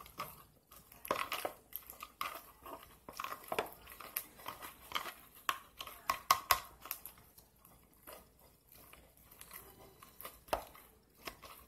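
Flarp noisy putty being squeezed and pushed by fingers in a plastic tub: irregular soft squelches and sticky smacks. A year old, the putty makes little of its trapped-air noise, which the boy judges not that noisy for a noisy putty.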